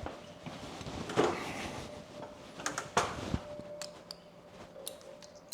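Handling noises from tie-down straps and their hardware: scattered knocks and rustling scrapes, the loudest about three seconds in, over a faint steady hum.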